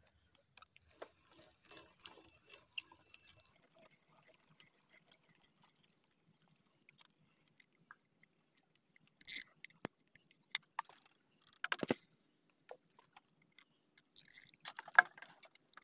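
Fishing rod and reel being handled up close: faint scattered small clicks and rattles at first, then a few sharper clicks and knocks in the second half.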